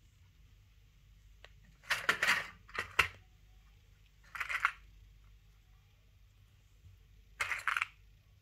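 Plastic sewing clips clicking and linen fabric rustling as hands clip a strap handle onto a tote bag, in four short bursts.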